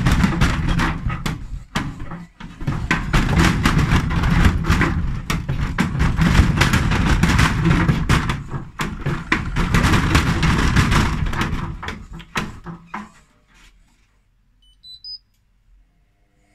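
Hotpoint Ariston front-loading washing machine spinning a badly unbalanced load with one shock absorber removed and no motor tachometer: loud rattling with repeated banging knocks from the drum. It winds down and goes quiet about thirteen seconds in, then a short run of high beeps sounds as the cycle ends.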